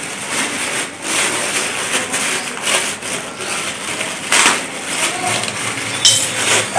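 Clear plastic wrapping crinkling and rustling as it is pulled and torn off a small speaker, in irregular crackly bursts.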